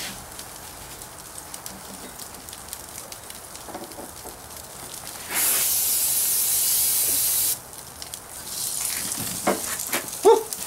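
Aerosol can of Pam cooking spray hissing in one steady blast of about two seconds, halfway through, as a trout fillet is doused. Underneath is a faint crackling sizzle from fillets on the hot gas grill, which grows louder near the end, with a short sharp sound.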